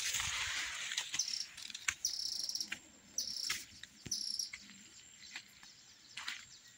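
Corn leaves rustling against the phone for about the first second. Then an insect, cricket-like, gives four short high chirping trills about a second apart.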